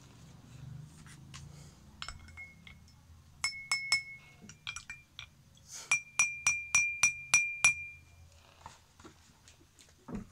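Spoon stirring in a glass tumbler of water, clinking against the glass: a few scattered ringing clinks, then a quick even run of about seven clinks a little past halfway.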